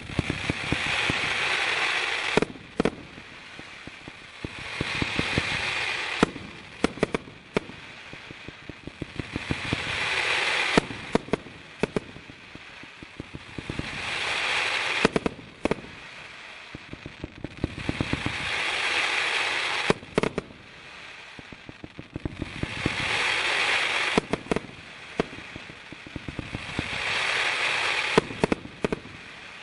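A 100-shot rain willow firework cake firing. A hissing spray of sparks swells up and dies away about every four and a half seconds, and after each swell comes a quick run of sharp pops and bangs from the shots.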